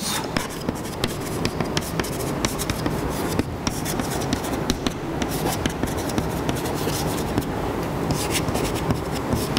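Chalk writing on a blackboard: a run of quick taps and scratching strokes.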